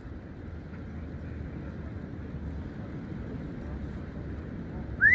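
Steady low background rumble, then near the end an Amazon parrot gives a loud whistle rising sharply in pitch, the opening of a wolf whistle.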